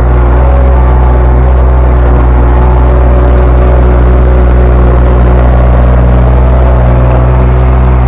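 Derette V1000 mini skid steer's engine running steadily and loudly while the machine works a rock bucket.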